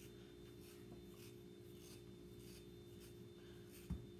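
Faint, soft scratching as fingers pull hair from a border terrier puppy's coat by hand (hand-stripping), over a steady low hum, with one low thump near the end.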